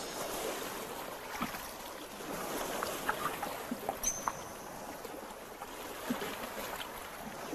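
Shallow stream water running and lapping among rocks, with scattered small splashes and clicks as spot-necked otters move through it. A brief high squeak about four seconds in.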